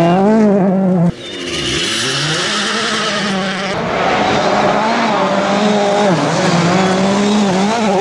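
Turbocharged four-cylinder World Rally Car engines at full throttle on gravel, in separate passes joined by cuts. The first engine breaks off suddenly about a second in. A noisier stretch of tyre and gravel hiss follows, then an approaching car's engine holds a steady note, dipping briefly at gear changes.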